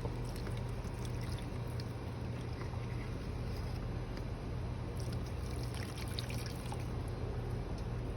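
Hot water pouring and trickling over a car battery's corroded terminals, washing the corrosion off, with a few small ticks and splashes, over a steady low hum.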